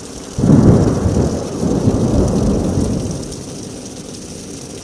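A thunderclap: a sudden loud low crack about half a second in, rolling on as a rumble for about three seconds before dying away.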